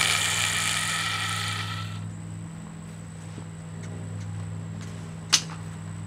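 The bare motor of a Hoover Handivac hand vacuum, broken out of its housing, winding down and fading away over the first two seconds. After that a low steady hum remains, with one sharp click a little after five seconds in.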